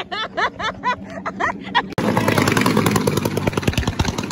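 Firecrackers going off in a rapid, continuous crackle of pops, starting suddenly about two seconds in and growing heavier near the end. Before that comes a run of short chirping glides.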